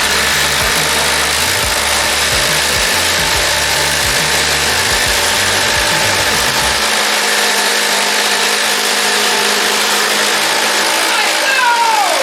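Two cordless impact drivers, a HART brushless and a DeWALT DCF887, hammering steadily as they drive fasteners in a race. Their motors whine up at the start and wind down with a falling whine as they stop near the end.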